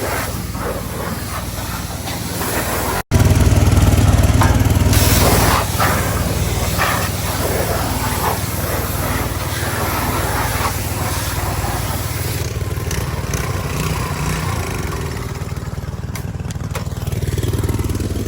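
Small gasoline engine running steadily. It drops out for an instant about three seconds in and comes back louder for a couple of seconds before settling.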